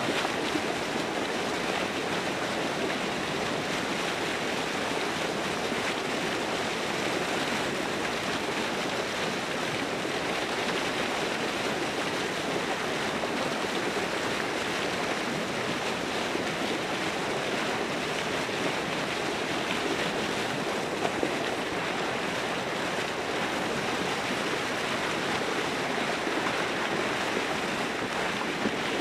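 Steady rush of water splashing and churning at the pond's edge, an even noise that holds without let-up.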